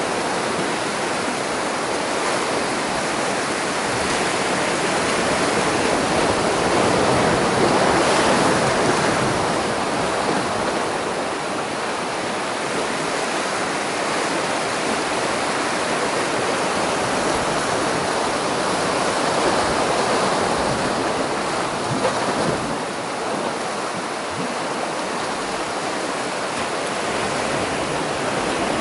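Sea surf breaking and washing over shoreline rocks: a steady rush of waves that swells louder about eight seconds in.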